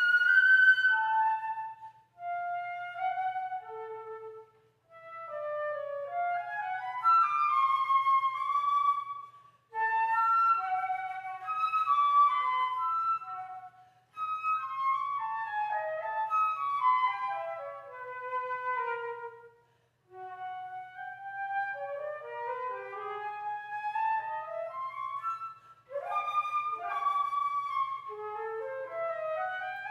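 Unaccompanied solo flute playing a melodic piece of quick rising and falling runs and held notes, in phrases broken by several short pauses.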